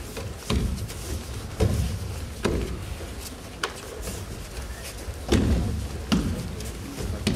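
Aikido falls on the practice mats: about seven irregular thuds and slaps as bodies and hands strike the tatami during breakfalls (ukemi).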